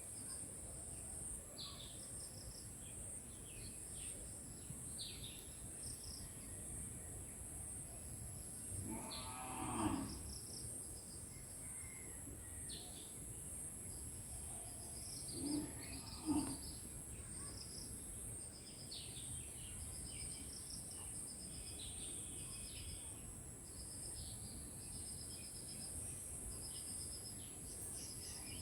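Rural ambience of a steady high-pitched insect drone with short, repeated bird chirps over it. A cow moos about nine seconds in and gives two shorter calls around sixteen seconds.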